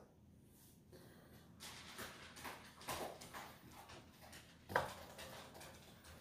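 Faint handling sounds of a fresh chili pepper being broken open and its seeds picked out by hand: soft clicks and rustles, with one sharper tap a little before the end.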